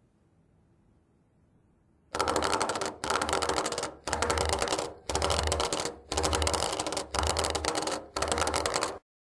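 Vibrating alert unit of a hearing-impaired-type residential fire alarm, buzzing and rattling in seven pulses about a second apart, starting about two seconds in after near silence.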